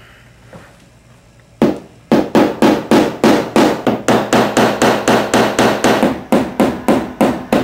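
Hammer striking a wooden stretcher frame to tack a canvas down: a first blow, then quick, even blows at about four a second.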